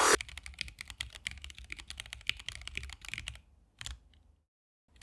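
Typing on a split mechanical keyboard with Gateron Oil King linear switches and XDA PBT keycaps. A quick run of key clacks lasts about three seconds, then comes a short burst, a brief pause, and another short burst of keystrokes near the end.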